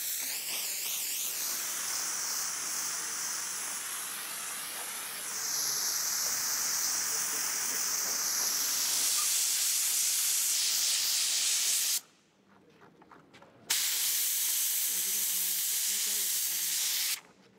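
Handheld steam cleaner jetting steam onto a mosaic panel: a loud, steady hiss that cuts off about twelve seconds in, resumes a second and a half later, and cuts off again near the end.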